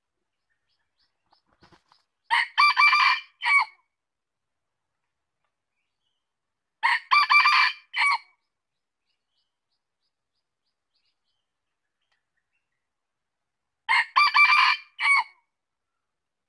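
Red junglefowl rooster crowing three times, several seconds apart. Each crow is about a second and a half long and ends in a short separate final note.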